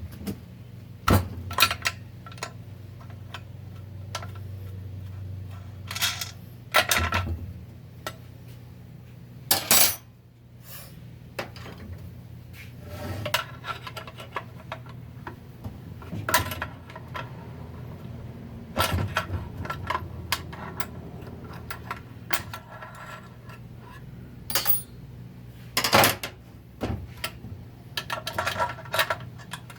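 Metal transmission parts and tools clinking and knocking on a workbench as they are handled and set down, in irregular sharp strikes throughout, over a steady low hum.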